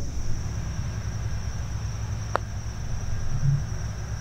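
A putter striking a golf ball once, a short click about two seconds in, over a steady high chirring of insects and a low steady rumble.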